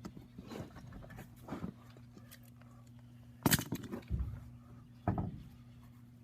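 Knocks and thuds as a spare tire is handled and fitted onto a truck's wheel hub, the loudest about halfway through and another about a second and a half later, over a steady low hum.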